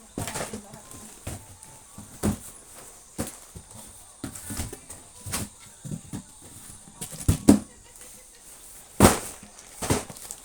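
Hands handling chocolate packaging: irregular rustles, clicks and knocks as boxes and wrapped bars are moved and set down. The sharpest knocks come in a pair about seven seconds in and once more about two seconds later.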